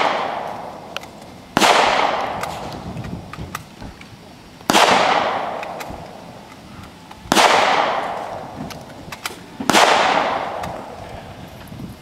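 Four single rifle shots from an AK-pattern rifle, fired slowly about two and a half seconds apart, each followed by a long echoing decay. The tail of a fifth shot, fired just before, is still fading at the start.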